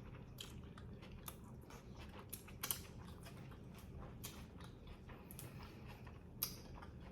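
Faint chewing of a grinder sandwich, with scattered soft mouth clicks and smacks at irregular intervals.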